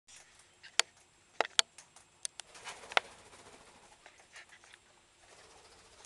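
Sulphur-crested cockatoos and a rainbow lorikeet pecking at seed on a wooden railing. Beaks strike and crack seed in about six sharp clicks within the first three seconds, then fainter, scattered tapping.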